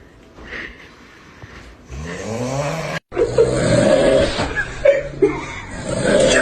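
A sleeper snoring: a long pitched snore about two seconds in. Near the middle the sound cuts off abruptly, and a louder, busier mix of voice-like sounds follows.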